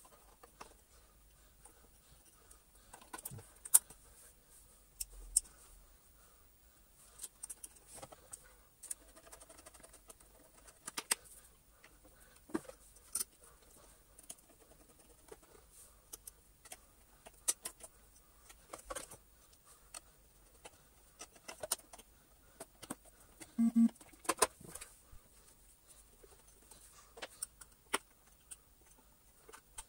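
Faint scattered clicks and taps of a screwdriver and plastic vacuum-cleaner housing parts as screws are driven into the corner pieces of the wheel housing, with a brief low squeak late on.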